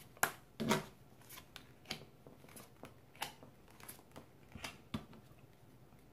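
Tarot cards being shuffled in the hands and dealt onto a table: a string of light, irregular card snaps and slaps, the louder ones in the first second.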